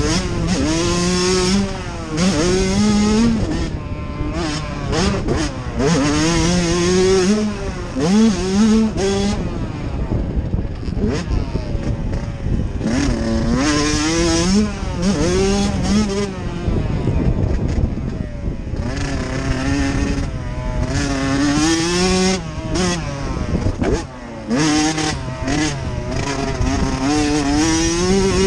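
Motocross dirt bike engine revving hard, its pitch climbing and falling again and again as the rider works the throttle and shifts around the track, with brief roll-offs about 18 and 24 seconds in.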